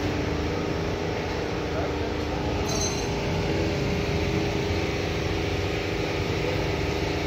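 Indistinct voices over a steady low hum, with no single sound standing out.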